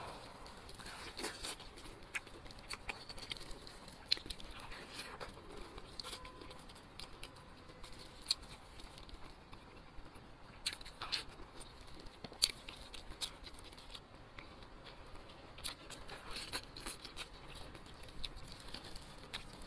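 Braised meat on the bone being pulled apart by hands in plastic gloves: wet tearing and squelching, glove crinkling and close-up chewing, heard as irregular short clicks and smacks.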